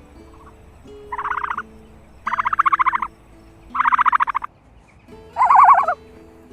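A large bird giving four loud, rapid rattling calls about a second apart, each lasting under a second, over soft background music.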